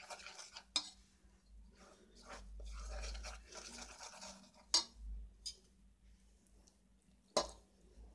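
A plastic spoon stirring dry flour mix in an enamel pot: soft, scratchy scraping, with three sharp clicks of the spoon against the pot, about one, five and seven and a half seconds in.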